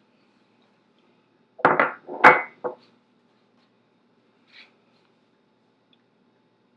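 Ceramic mug being set down on a hard surface: a quick run of three or four hard knocks about two seconds in, the third the loudest, then one faint click a couple of seconds later.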